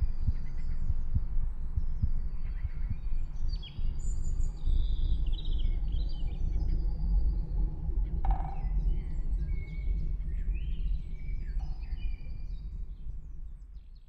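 Several birds chirping and calling in short, scattered notes over a steady low rumble, all fading out near the end.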